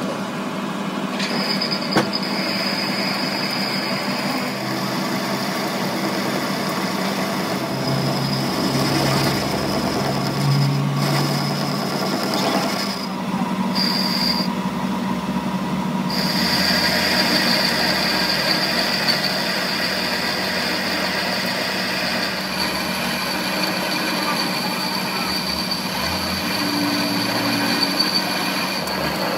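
Metal lathe running, its cutting tool turning down the rusty surface of a steel CV axle shaft to bright metal. A steady high whine comes in about a second in and drops out briefly a couple of times around the middle.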